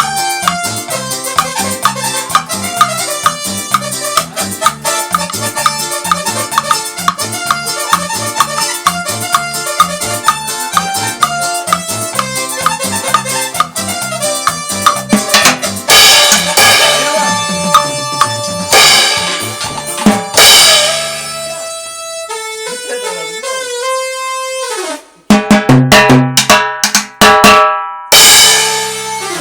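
Cumbia music with a steady drum and percussion beat. About halfway through it breaks into loud accented hits, thins out briefly, then closes with a run of sharp band stabs as the song ends.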